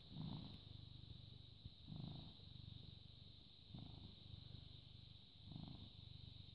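British Shorthair cat purring, a faint, steady low rumble that swells in a regular rhythm about every two seconds.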